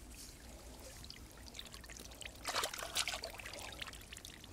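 Shallow water splashing and trickling as it is stirred by hand, with a short run of louder splashes about two and a half seconds in.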